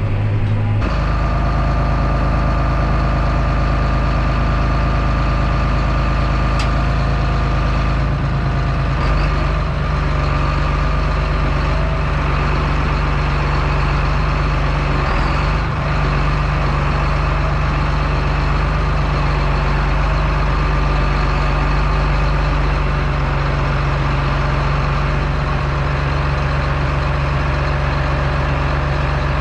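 Heavy farm-machinery engine running steadily with a deep drone and a thin, steady whine above it.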